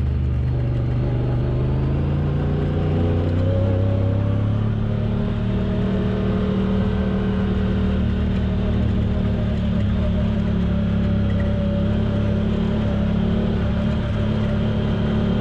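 Off-road vehicle's engine running while driving, its pitch climbing about three to four seconds in and then holding steady.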